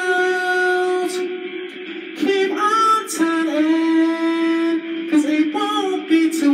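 A man singing long held notes into a handheld microphone, with short slides between pitches.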